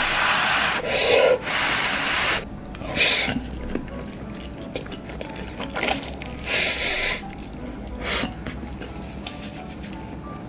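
Someone slurping up a mouthful of Chapagetti black-bean instant noodles in long, loud slurps: a run of them in the first couple of seconds, one about three seconds in, and another a little before seven seconds. There is quieter chewing in between.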